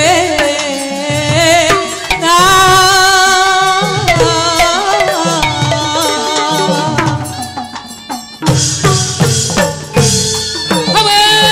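A woman singing a Burmese song with vibrato, backed by a traditional Burmese ensemble's drums and percussion. Her singing stops about seven seconds in, leaving drum strokes, and a steady held reedy note comes in near the end.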